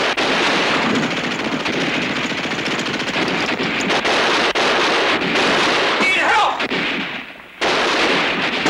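Battle sound effects: continuous rattling machine-gun and rifle fire. About six seconds in a falling whine cuts through, the firing drops away briefly, then cuts back in suddenly near the end.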